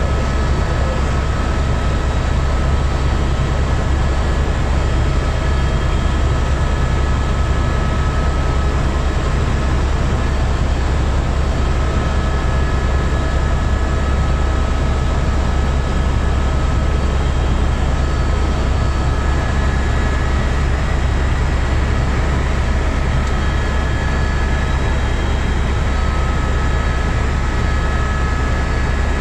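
Helicopter in flight, heard inside the cabin: a loud, steady deep drone under a wash of noise, with thin high whine tones that come and go.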